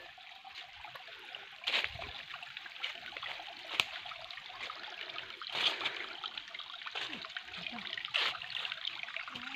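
Stream water trickling steadily over rocks, with four brief thumps along the way.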